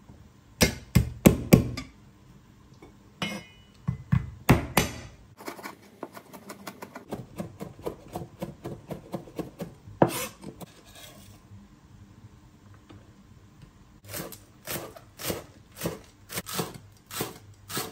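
Chinese cleaver chopping on a wooden cutting board: first mincing garlic in quick runs of knocks, then slicing spring onions in a steady run of about three strokes a second near the end.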